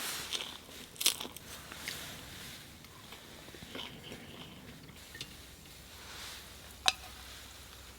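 Close-up crunching and chewing of food, busiest in the first two seconds and then quieter, with a single sharp click near the end.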